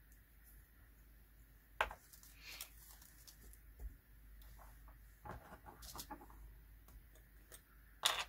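Faint handling noises: a few small clicks and taps of a small round plastic bead pot being handled on a table, the sharpest click about two seconds in.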